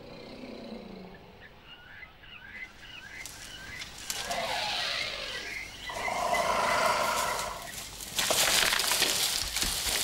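African elephant trumpeting in a threat display at lions: a rising call about four seconds in, a long held trumpet soon after, then a harsher, noisier blast near the end.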